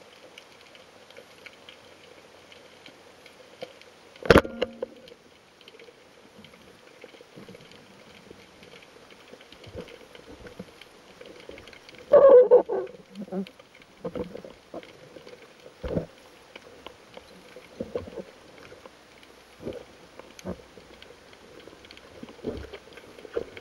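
Underwater sound: a faint steady crackle, broken about four seconds in by a single sharp snap of a speargun firing. Around twelve seconds a loud rough burst of noise lasts about a second, followed by scattered knocks and clicks.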